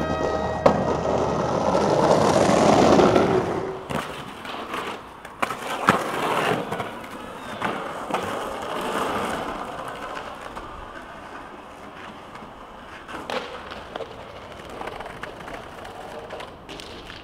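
Skateboard wheels rolling on concrete, loudest in the first four seconds and then fading, with a series of sharp clacks and knocks from the board's tail popping and landing.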